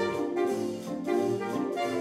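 High school jazz big band playing a swing arrangement: the brass and saxophone sections sound full chords together in short riffs over drums, guitar and bass.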